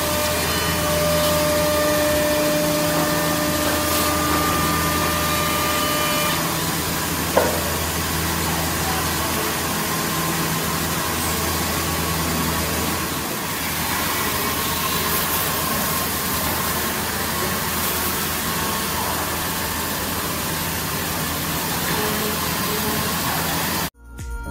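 Woodmaster WM-1325RS CNC router running, its spindle machining a wood panel under the dust-extraction hood: a steady, loud machine noise with a steady whine that stops about six seconds in. It cuts off suddenly near the end.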